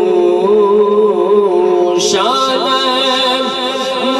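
Male Quran reciter chanting tilawat into a microphone, holding long melodic notes with ornamented wavering. About two seconds in, after a short breath, he begins a new phrase.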